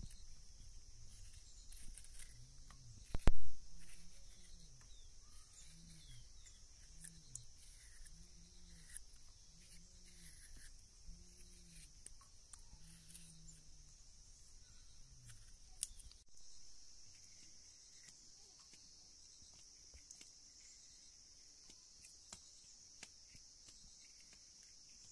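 Steady high chirring of crickets or other insects, with a run of short, low, arching calls about once a second through the first half. There is one loud knock about three seconds in, and scattered light clicks throughout.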